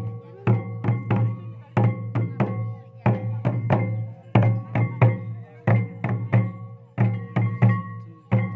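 Santal processional drumming: tamak' kettle drums beaten with sticks together with tumdak' barrel drums, playing a steady pattern of deep strokes about two to three a second, with a ringing tone held over the beats.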